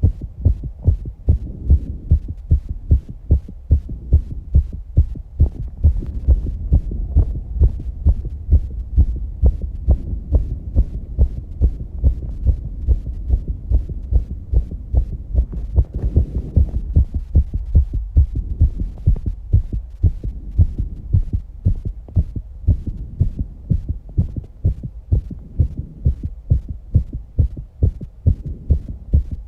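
A human heartbeat heard as a regular, quick train of low thumps, about one and a half beats a second, after exercise.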